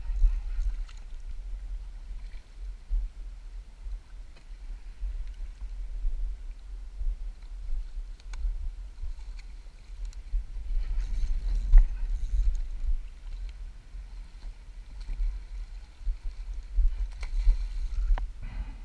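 Wind buffeting the microphone: an uneven low rumble throughout, with a few faint clicks.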